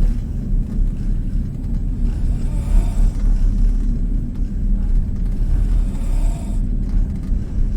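A sleeping passenger snoring, two snores about three and a half seconds apart, over the steady low rumble of a running train carriage.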